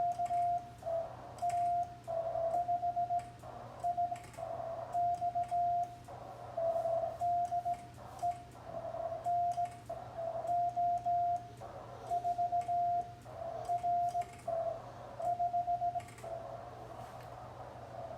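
Morse code (CW) from a ham radio transceiver: a single mid-pitched tone keyed on and off in dots and dashes, with short gaps between characters, over a faint hiss and a steady low hum.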